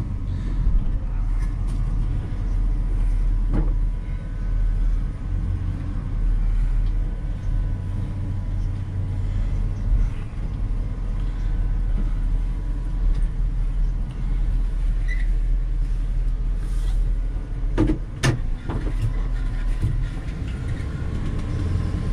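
1979 Dodge Lil Red Express's 360 police V8 running smoothly as the truck moves slowly, heard from inside the cab as a steady low rumble, not loud. A couple of sharp knocks come about eighteen seconds in.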